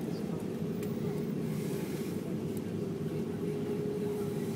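Steady cabin noise inside an Airbus A380 as it taxis: a low rumble with a steady hum.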